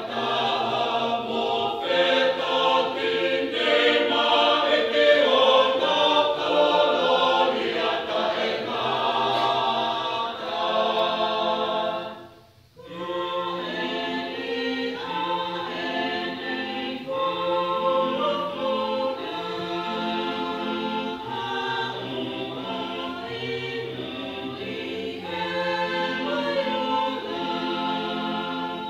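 Mixed-voice Tongan church choir singing a gospel song in harmony. The singing breaks off briefly about twelve seconds in, then the next phrase begins.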